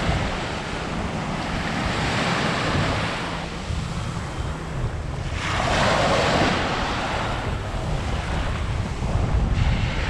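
Small sea waves breaking and washing up onto a sandy beach, with one louder crash about halfway through. Wind buffets the microphone with a steady low rumble underneath.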